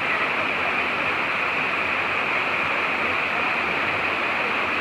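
Steady rush of a slide-type waterfall: creek water sheeting and churning white down a broad, sloping rock face into a plunge pool.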